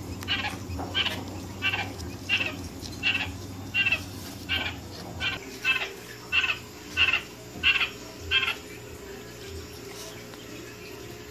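Newly hatched quail chick peeping over and over, short calls at about one and a half a second, which stop about eight and a half seconds in.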